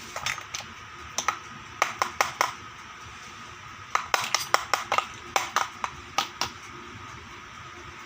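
Small sharp clicks and taps in irregular clusters, from the pieces of a miniature plastic toy kitchen set being handled and set down, over a steady faint hiss.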